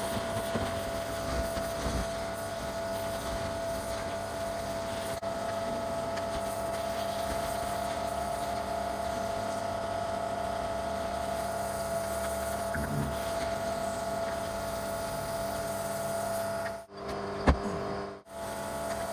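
Pressure-washing equipment running steadily: an engine or pump humming with a constant whine. It drops out briefly near the end, with one short sharp sound.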